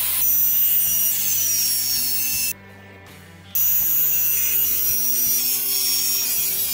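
Handheld circular saw cutting slots across the end of a clamped stack of timber boards, in two cuts: the first stops about two and a half seconds in, and the second starts about a second later.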